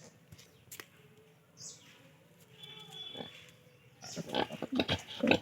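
Pigs grunting: a few faint sounds at first, then from about four seconds in a quick run of loud short grunts.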